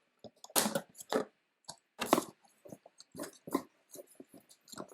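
Toy packaging being handled: an irregular run of crinkles, clicks and taps from plastic and cardboard as playset pieces are worked out of the box.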